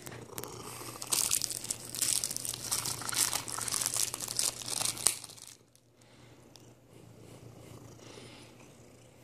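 Cellophane wrapping crinkling and crackling as a cat bites and tugs at it. The sound runs for about four seconds and stops sharply about five seconds in.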